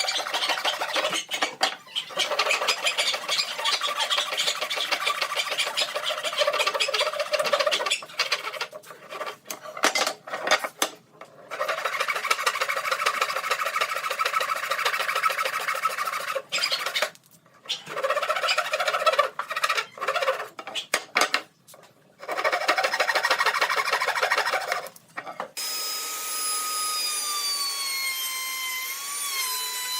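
A tool working wood in stop-start runs of a few seconds, a dense scraping noise broken by short pauses. Near the end it gives way to the steady whine of a small power-tool motor that wavers slightly in pitch.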